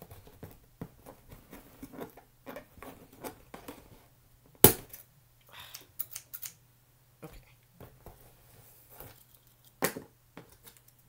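Scissors snipping the ties that hold a doll in its packaging: a run of small clicks and rustles, with two much louder sharp snaps, one about halfway through and one near the end.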